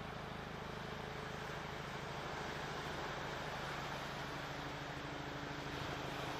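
Steady wash of Atlantic surf and wind on an ocean beach, with a low steady hum underneath.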